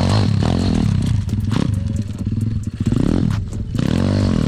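190 cc pit bike engine being ridden hard, revving up and down with the throttle, its pitch rising and falling several times. It dips briefly a little under three seconds in, and a few sharp clicks sound over it.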